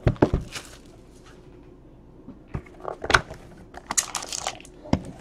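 Plastic shrink wrap crinkling and a cardboard trading-card box being opened and handled by hand. A rustle at the start, a quieter stretch, then scattered rustles and a few sharp clicks and taps in the second half.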